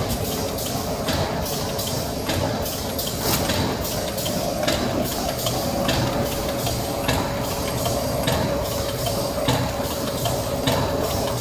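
Vertical form-fill-seal pouch packing machine with an auger filler running: a steady mechanical hum with regular sharp clacks a little more than once a second.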